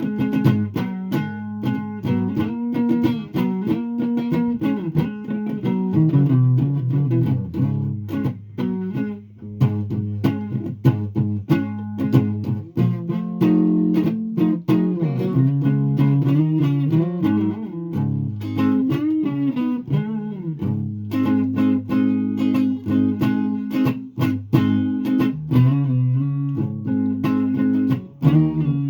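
Guitar being played: a steady stream of plucked notes and chords, many a second, with some lower notes held under them.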